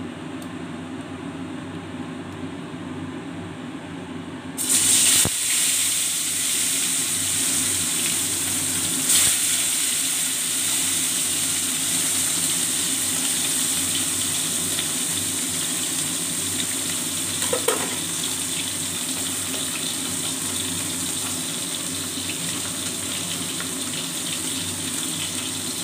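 Whole parshe (gold-spot mullet) fish frying in hot mustard oil in a steel wok: after a few quieter seconds, a loud sizzle starts suddenly about four and a half seconds in as the fish go into the oil, and carries on steadily.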